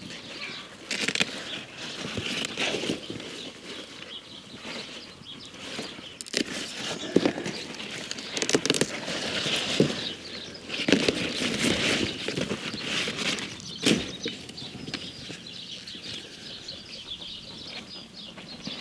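Rhubarb leaves and stalks rustling and crackling as a hand works among them and pulls stalks from the crown, with irregular sharp snaps and clicks, a sharp one near the end.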